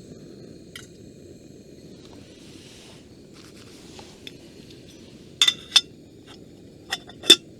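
Steady low rush of a gas camp-stove burner heating a kettle, with four sharp, ringing metal clinks of cookware being handled in the last two seconds.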